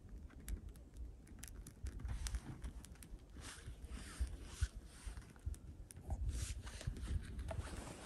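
Small twigs and pine branches being handled: soft rustling and scraping with scattered small clicks and snaps.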